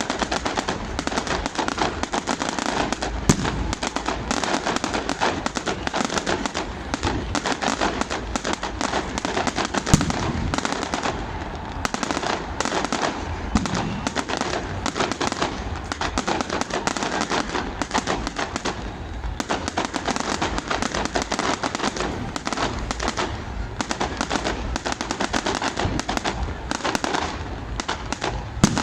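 Fireworks going off without a break: a dense run of rapid pops, with a few louder single bangs standing out about three seconds in, about ten seconds in and just before the end.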